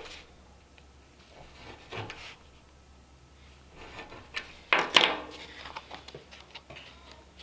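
A folding knife cutting a slit through a cardboard template on a steel workbench, with faint scraping. About five seconds in come a few sharper clicks and rustles as the board is lifted and handled.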